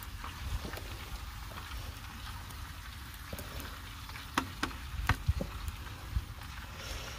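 Glaze being spread onto meatloaf in an aluminum foil pan on a gas grill, with light scraping and a few sharp clicks of the utensil against the pan and the plastic tub about four to five seconds in. Under it runs a faint steady hiss like cooking juices sizzling in the pan.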